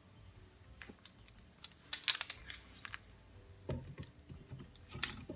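Glass canning jars and metal clinking and clicking as jars of chicken broth are lifted out of an electric pressure canner. A quick cluster of sharp clinks comes about two seconds in, then a couple of dull knocks as jars are set down near the end.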